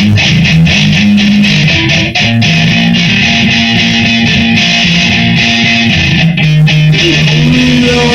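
Electric guitar strumming chords in a steady rhythm, with no singing, recorded on a phone.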